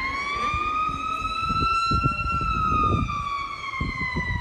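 Ballpark siren sounding one long wail that rises, then slowly falls in pitch, over low rumbling noise.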